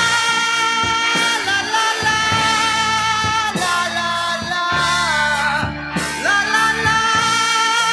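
A Thai song playing from a vinyl record: a passage without lyrics, with held melody notes over a bass line.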